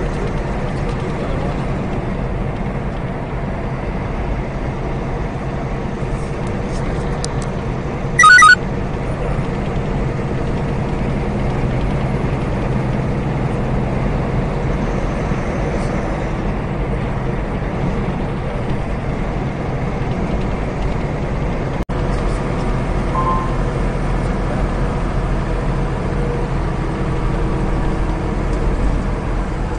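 Steady low rumble of a semi truck's engine and road noise heard inside the cab at highway speed. About eight seconds in there is one short, loud high-pitched tone.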